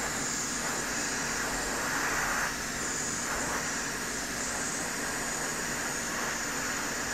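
Hot air rework station set to 170 °C blowing through its handpiece nozzle onto a laptop display bezel: a steady airflow hiss with a faint fan hum, swelling slightly for a moment about two seconds in.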